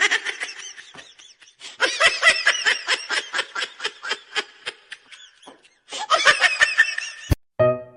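High-pitched giggling laughter in quick repeated pulses, coming in three runs. Near the end a sharp click cuts it off and piano music begins.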